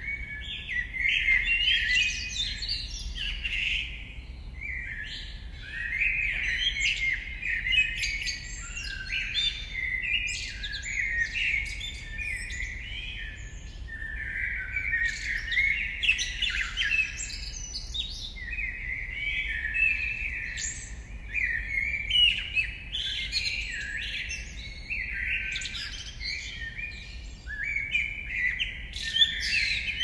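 A dawn chorus of several songbirds singing at once, with chirps and song phrases overlapping continuously. A faint steady low rumble runs underneath.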